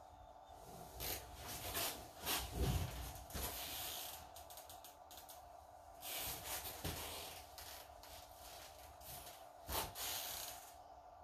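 Dyneema rope rubbing and rustling as it is handled and tied off, in irregular bursts with a few sharp clicks and knocks, over a faint steady hum.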